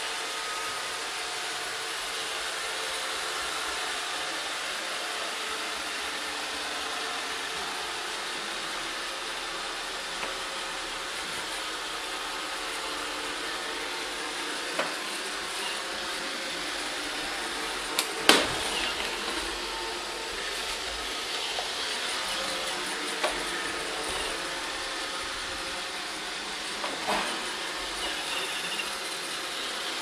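iRobot Roomba 565 robot vacuum running steadily on a wooden floor, its vacuum motor and brushes making an even noise. A few sharp knocks break in, the loudest about two-thirds of the way through.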